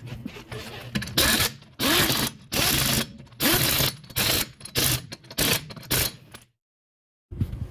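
Repeated short bursts of ratcheting mechanical noise, about nine in five seconds, which stop abruptly.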